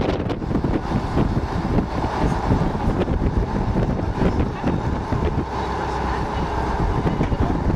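Wind buffeting the microphone on the deck of a moving Yaroslavets motor boat, over the steady running of the boat's engine and water rushing past.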